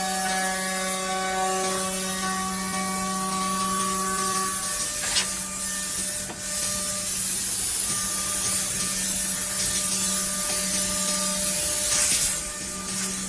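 CNC six-sided drilling machine with automatic tool change running, giving a steady machine hum and hiss with tones that come and go. A few sharp clicks sound about five, six and twelve seconds in.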